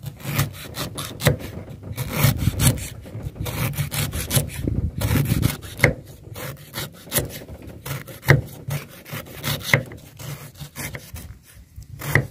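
Kitchen knife chopping on a round wooden chopping block as lemongrass stalks are cut into thin rings: a quick, uneven run of short knocks, several a second, a few louder than the rest.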